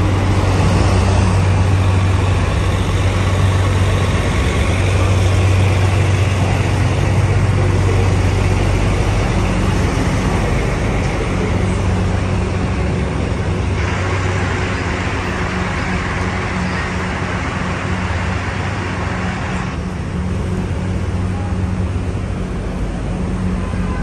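Street traffic with a city bus's engine running close by, a steady low drone, over a constant wash of car and traffic noise. A little past the middle, a louder hiss lasts for several seconds.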